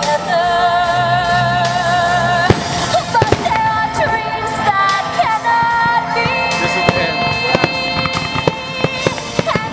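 Aerial fireworks bursting and crackling, with many sharp pops and one loud bang about two and a half seconds in. Under them plays a song with a singer holding long, wavering notes.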